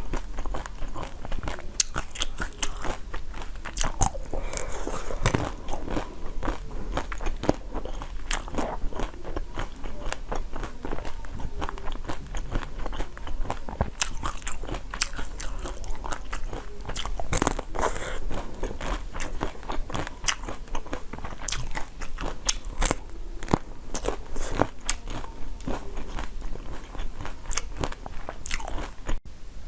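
Close-up eating sounds: a person biting and chewing, with many sharp crunches and crackles in quick, uneven succession, and a brief break near the end.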